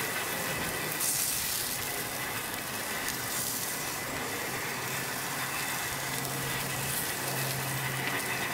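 Zucchini slices sizzling on the grates of a gas grill: a steady hiss that brightens for a moment about a second in and briefly a couple of times after.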